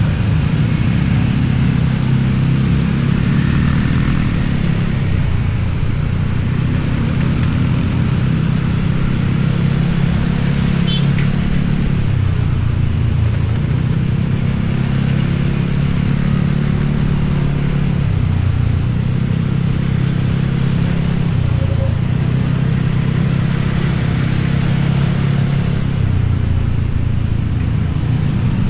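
A motor vehicle engine running continuously, its pitch rising and dropping every few seconds as it speeds up and eases off.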